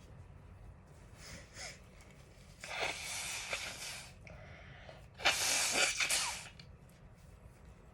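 A person sneezing twice, a couple of seconds apart, the second sneeze the louder, with a faint breath drawn in before them. The sneezes are brought on by chhinkni, a Nepali sneezing powder.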